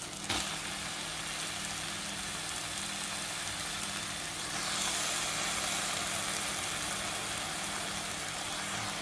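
Onion-tomato masala sizzling steadily in a stainless steel frying pan, with a light knock near the start and a low hum underneath. About halfway through, as a heap of oyster mushrooms goes onto it, the sizzle grows a little louder and hissier.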